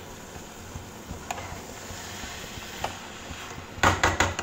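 Metal spatula stirring thick carrot halwa in a steel kadai, with a few faint scrapes, then several sharp clinks of the spatula against the pan near the end, over a low steady hum.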